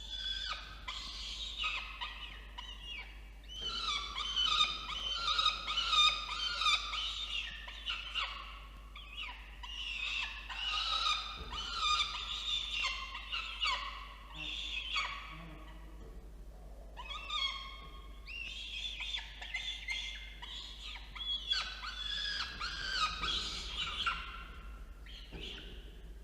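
Peregrine falcon chicks calling at the nest, a dense run of high-pitched chirping calls in several bouts with short lulls: food-begging during a feeding.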